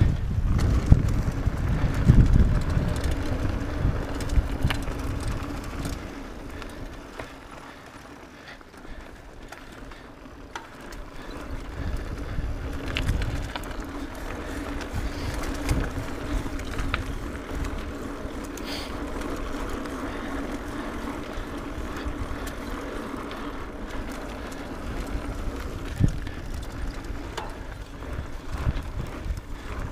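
Mountain bike descending a dirt trail: wind rumbling on the camera's microphone, strongest in the first few seconds, over tyres rolling on dirt. Scattered clicks and knocks of the bike rattling over bumps sit over a steady hum.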